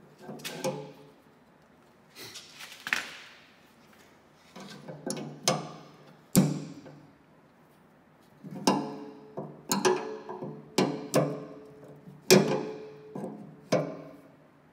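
Metal wrenches clinking and ticking against a brass fuel line nut and fitting as it is tightened. The sound comes in irregular clusters of sharp, briefly ringing clicks, with the loudest single clank about halfway through.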